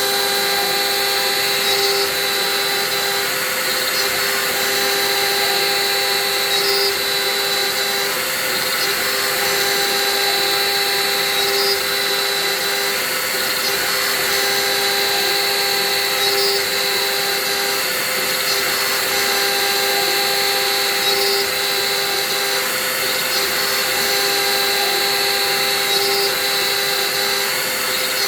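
Hobby CNC milling machine running steadily with a whine of motors. A regular cycle repeats about every five seconds, typical of the axes stepping through a repeated toolpath.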